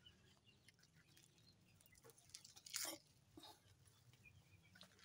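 Near silence, with faint scattered ticks and rustles and a brief soft scuff about three seconds in.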